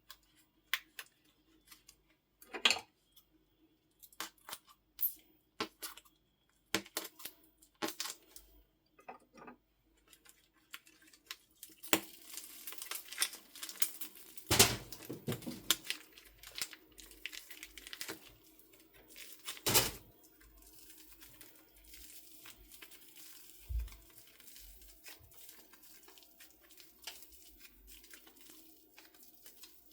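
Slime being mixed with soft clay: scattered sticky clicks and pops, turning into a denser crackling run about twelve seconds in, then settling to a quieter crackle.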